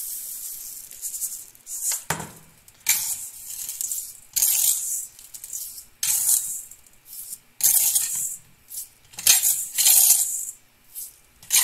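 Dry sand running from a plastic container into a plastic funnel with a steady hiss that fades out, then handfuls scooped from a stainless steel bowl: short rattling rushes of sand grains, one every second or two.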